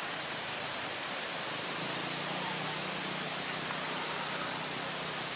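Steady, even hiss of noise with a faint low hum underneath, starting suddenly just before and holding at one level.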